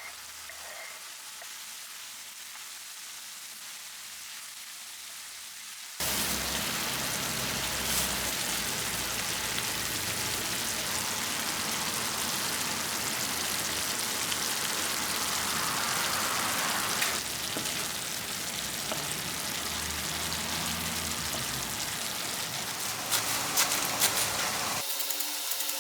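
Food sizzling in a hot frying pan. It is quiet at first and much louder from about six seconds in, with a few light clicks near the end.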